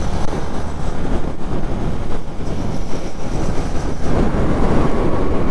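Motorcycle cruising steadily in sixth gear at about 60 km/h: the engine's steady drone under wind and road noise on the bike-mounted microphone.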